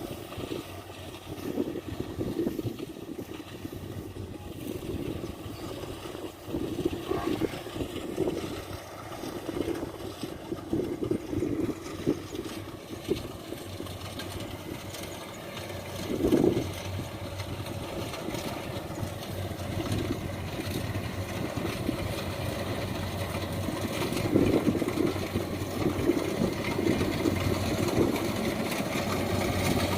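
Rice combine harvester's engine running steadily, with uneven surges in its note; it grows louder in the last third.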